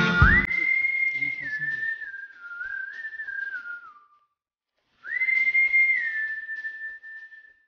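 Whistled melody on a single clear pitch, stepping up and down in two phrases with a pause of about a second between them. It opens on the tail of a strummed guitar chord.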